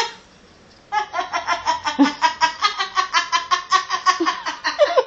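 A person laughing hard in a long run of rapid, evenly spaced bursts, starting about a second in after a brief lull.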